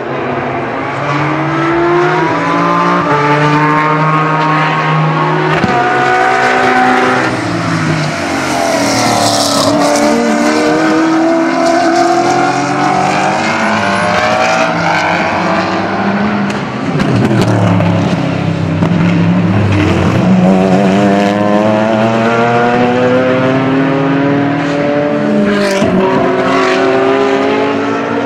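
GT race car engines at full throttle as several cars pass one after another. The pitch of each engine climbs and then swoops down as the car goes by.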